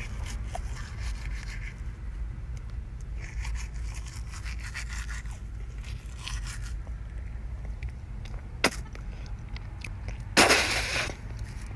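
Manual toothbrush scrubbing teeth in short scratchy strokes, over a steady low rumble. A sharp click comes near the ninth second, and a louder, longer noise about ten seconds in.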